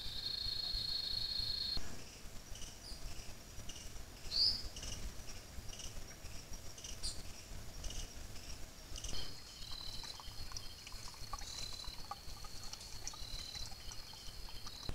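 Night insects calling: crickets trilling steadily at a high pitch, with scattered short chirps over a low background hiss. The chorus changes abruptly about two seconds in and again about nine seconds in.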